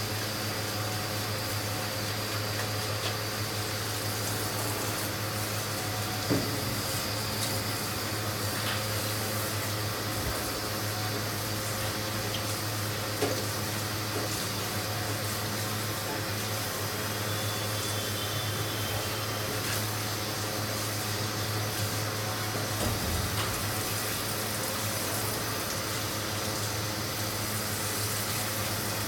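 Water spraying and splashing from a hand-held bathing sprayer in a stainless steel dog-grooming tub, over a steady low hum, with a couple of light knocks.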